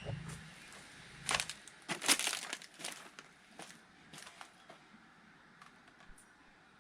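Dry wood cracking and crunching: one sharp crack about a second in, then a louder burst of crackling about two seconds in, fading to a few faint ticks.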